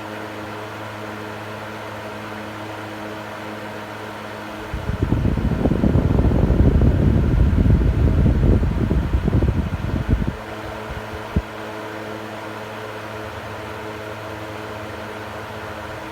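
Electric fan running with a steady motor hum. For about five seconds in the middle it is swamped by a much louder, rough low rumble, then the hum settles back, with a single click shortly after.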